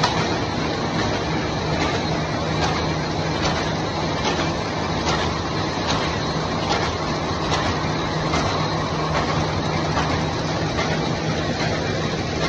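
Paper bag making machine running steadily: a continuous mechanical hum and clatter, with a faint regular clack a little more than once a second.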